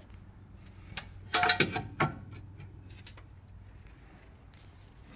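A quick cluster of three or four sharp knocks or clatters, about a second and a half in, over a faint steady low hum.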